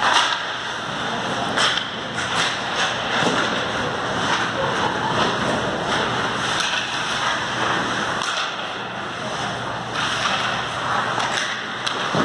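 Ice hockey play at close range: skate blades scraping and carving the ice, with repeated sharp clacks of sticks and puck striking, over a steady low hum.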